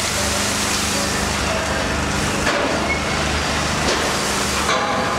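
Loaded coal train moving slowly through the unloading point: the diesel locomotive runs with a steady low drone under a continuous rushing noise from the hopper wagons. A few faint, brief squeals sound over it.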